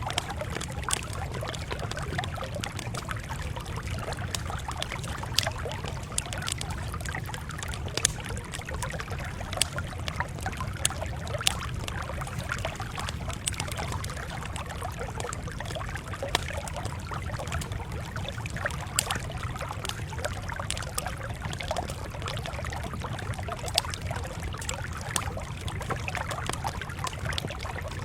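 Campfire crackling, with irregular sharp pops and snaps over a steady low rumble of burning wood.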